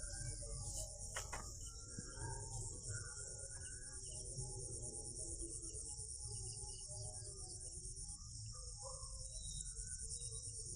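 Insects chirring in a steady, high-pitched chorus, with short faint chirps scattered over it and a low rumble underneath.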